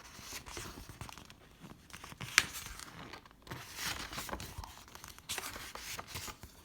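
Paper gift wrapping and packaging being rustled, crumpled and torn open by hand, in irregular bursts, with one sharp snap about two and a half seconds in.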